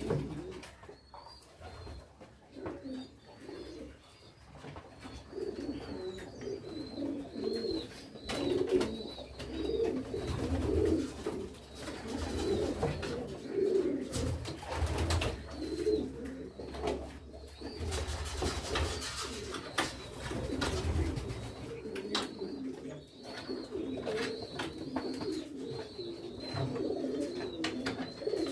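Domestic pigeons cooing over and over, with scattered short clicks and knocks from handling.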